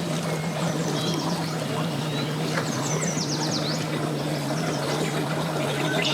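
A boat's outboard motor running at a steady idle, a constant low hum, with a bird's quick run of high, falling chirps about three seconds in.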